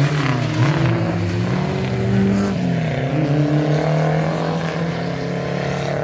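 Race-prepared small hatchback's engine revving hard on a slalom course. Its pitch rises and falls with the throttle, dropping sharply about two and a half seconds in, then climbing again.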